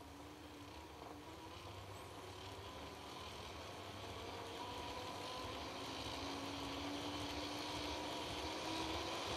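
Bachmann 2-4-2T Lyn large-scale model locomotive's electric motor, gears and wheels running on test rollers, with a faint whine that creeps up in pitch. It grows steadily louder as the voltage is turned up and the engine speeds up.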